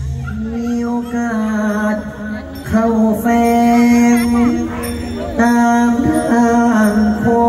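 A man singing Thai sepha recitation through the stage sound system: long drawn-out chanted notes in a few phrases, each starting with a slight bend in pitch and then held steady.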